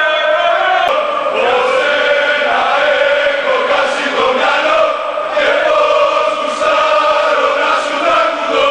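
A crowd of football supporters singing a chant together, many voices at once in a continuous song, in the hard, enclosed space of an underground metro station.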